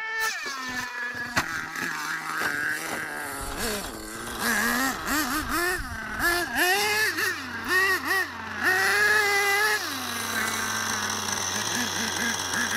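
Small nitro glow engines of RC trucks revving in a series of quick throttle blips, each note rising and falling, then dropping back to a steady idle about ten seconds in.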